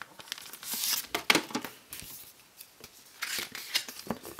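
A paper CD booklet being slid out of a clear plastic jewel case and opened: rustling and scraping of paper and plastic in two bursts, about a second in and about three seconds in, with a few sharp plastic clicks.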